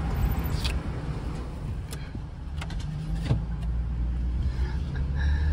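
Car engine running at low speed, heard from inside the cabin as a steady low rumble, with a few light clicks.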